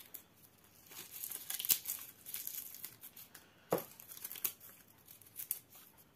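Dry dead leaves being torn and crumpled by hand, crackling and rustling in irregular spells, with a sharper crack nearly four seconds in.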